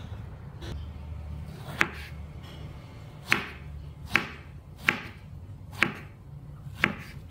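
Kitchen knife chopping peeled luffa on a wooden cutting board: six sharp knocks of the blade striking the board, roughly one a second, over a low steady hum.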